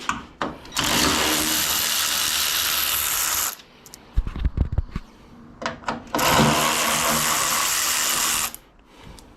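A power drill running twice, each run lasting a few seconds at a steady speed, spinning a 10 mm socket to undo headlight bolts. There are clicks and knocks of handling in the gap between the runs.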